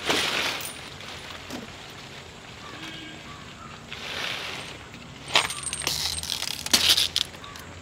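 Captive Asian elephant handling a palm frond: the leaves rustle and his leg chains clink in several short bursts.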